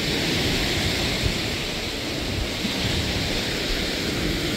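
Sea surf in a moderate swell breaking and washing up a pebble beach: a steady rushing hiss. Wind buffets the microphone with a low rumble.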